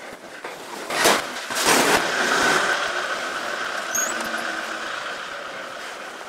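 Small truck passing close in a narrow street: a loud rush of noise about a second in, then a steady high whine that slowly fades.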